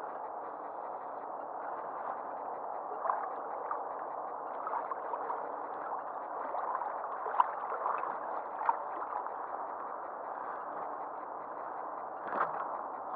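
Lake water gurgling and lapping over a steady rushing background, with scattered light ticks and one sharper knock near the end.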